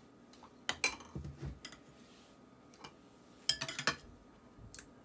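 Metal spoons clinking and scraping against bowls as green chutney and yogurt are spooned from a serving bowl into a glass bowl. A couple of sharp clinks come about a second in, and a quick run of clinks follows around three and a half seconds in.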